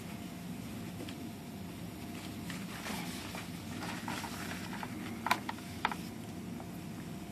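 A foaming can of Coke Zero being handled on a desk: faint fizzing crackle and rustling, then two sharp knocks a little over half a second apart as the can is set down, over a steady low background hum.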